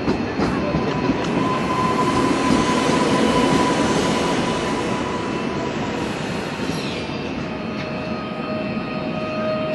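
Newag Impuls electric multiple unit pulling into the platform and slowing to a stop. Its wheel and rolling noise builds to a peak about a third of the way in and then eases, over a steady electric whine from the drive, which drops to a lower steady hum as the train comes to rest near the end.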